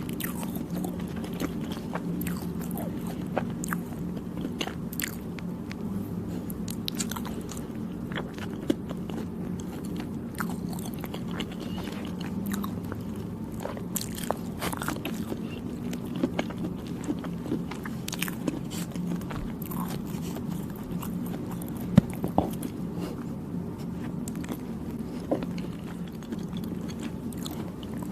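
Close-miked chewing of soft, chewy Thai desserts, with many short wet mouth clicks and smacks. A steady low hum runs underneath, and one sharper click stands out about two-thirds of the way through.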